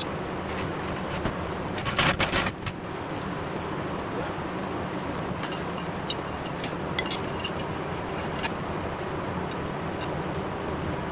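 Metal clatter and clicks of hands-on work at a truck's rear axle as a steel floor jack is set under the radius arm, with a loud burst of clanks about two seconds in and lighter clicks later, over steady background noise with a low hum.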